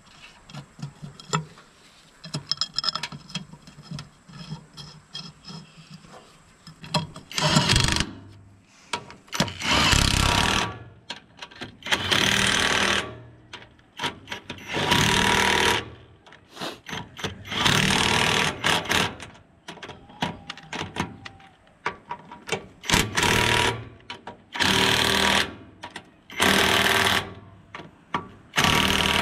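Cordless impact wrench hammering bolts down on a round filter cover on an excavator's steel deck. It runs in short bursts of about a second, about nine times, and starts after some seconds of faint clicks.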